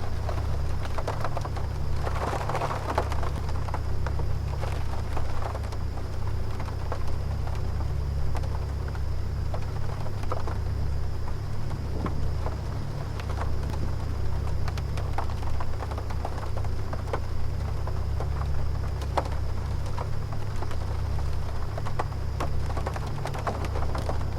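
Hotel-room air conditioner running with a steady low hum and a faint high whine, while rain falls outside with scattered drop taps and the occasional distant rumble of thunder.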